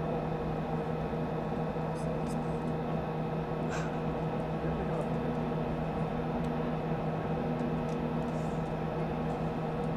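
Steady hum: a constant low tone with a few higher tones over a hiss, broken by a few faint clicks about two and four seconds in.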